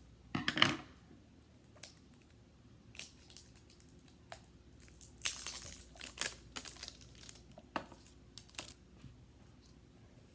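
A plastic toy egg being handled and opened by hand: a knock about half a second in, scattered plastic clicks, and a stretch of crinkling plastic packaging in the middle.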